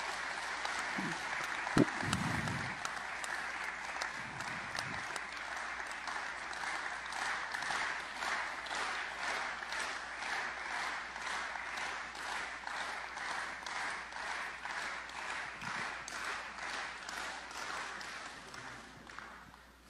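Audience applauding, the clapping turning into a steady clap in unison, about two claps a second, before dying away near the end.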